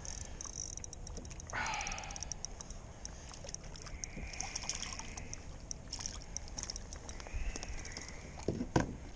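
A hooked crappie splashing and thrashing at the surface beside a kayak as it is reeled in, with water sloshing against the hull. There are a few sharp knocks near the end as the fish is lifted aboard.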